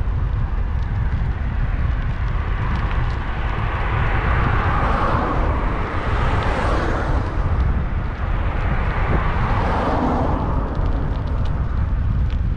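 Wind rumbling steadily on the bicycle-mounted camera's microphone while riding, with road traffic passing alongside: a car swells up and fades about halfway through, and another a few seconds later.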